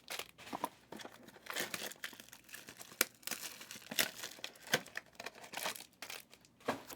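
Plastic wrapping on trading card packs crinkling and tearing open, in a string of irregular crackles and rustles.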